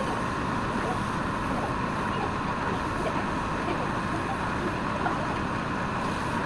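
Wood lathe running steadily: a constant mechanical hum with a steady whine.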